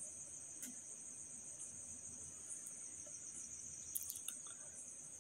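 Faint, steady high-pitched trill of crickets, with a few light clicks about four seconds in.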